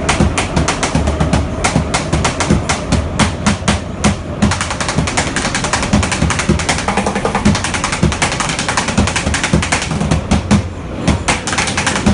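Rapid drumming with sticks on plastic buckets, a fast run of strokes over the running rumble of a metro train.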